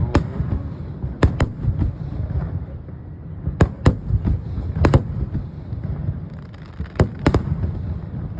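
Fireworks display going off: sharp bangs and crackles every second or two, several in quick pairs, over a steady low rumble.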